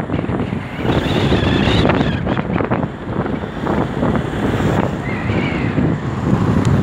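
Wind buffeting the microphone of a moving motorcycle, with its engine and road noise underneath. A faint wavering high tone comes through twice.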